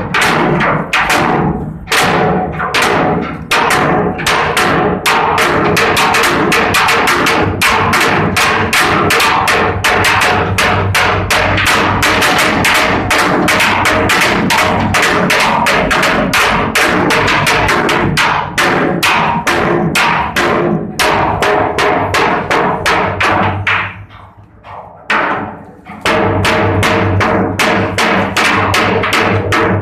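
Background music with a steady percussive beat over held tones and bass, briefly dropping away about three-quarters of the way through before resuming.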